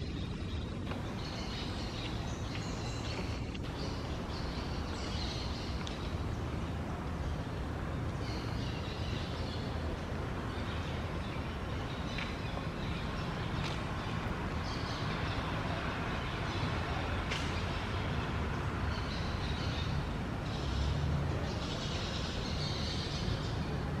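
Steady outdoor background noise with a low rumble, and high chirps that come and go every few seconds.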